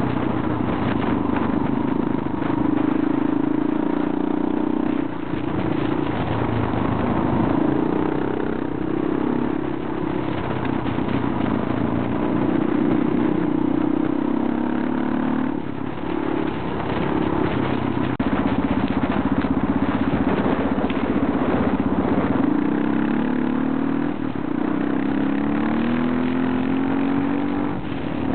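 Motorcycle engine running under way on a gravel road, its pitch rising and falling several times and climbing near the end as the bike accelerates, over a steady rush of wind and road noise.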